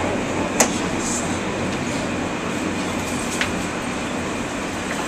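New York City subway car running, with the steady rumble and hiss of wheels on the track. Two sharp clicks cut through it, a loud one about half a second in and a softer one about three and a half seconds in.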